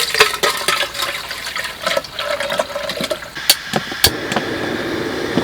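Soup poured into a pot, splashing and gurgling. About four seconds in there is a sharp click, and a steady gas-burner hiss starts.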